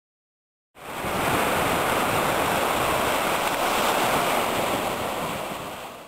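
Sea surf washing on the shore with wind on the microphone, a steady rushing hiss. It comes in abruptly after a brief dead silence and fades out near the end.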